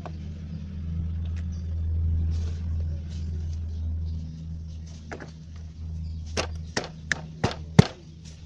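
Motorcycle flywheel rotor with its starter one-way clutch being slid back onto the crankshaft by hand: a quick run of five or so sharp metallic clicks and knocks near the end as it seats, over a steady low hum.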